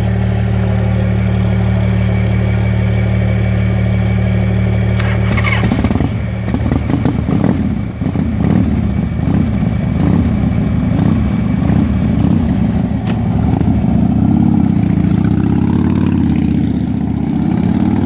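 V-twin cruiser motorcycle engine idling steadily, then about six seconds in it pulls away, running unevenly at low speed before the note rises as it accelerates off.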